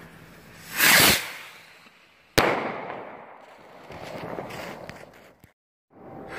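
Fireworks set off on snowy ground: a loud hissing burst about a second in, then a sudden sharp bang that dies away, followed by fainter crackling.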